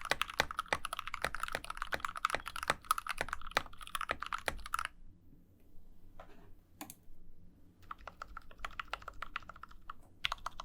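Custom 60% mechanical keyboard with a brass plate in an aluminum case, lubed Gateron switches and PBT keycaps, being typed on fast: a dense run of key clacks for about five seconds, a near-pause with just a couple of strokes, then typing picks up again.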